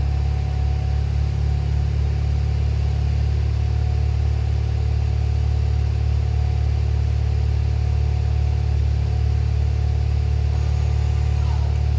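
Car engine and exhaust running at a steady, unchanging engine speed, a deep even note with no revving.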